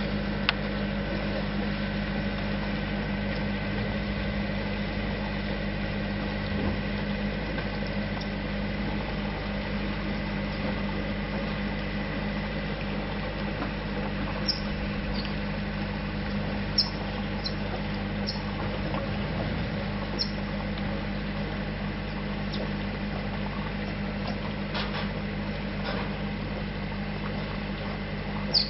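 A paddle steamer's engine running steadily, a low even hum, with a few faint sharp clicks about halfway through.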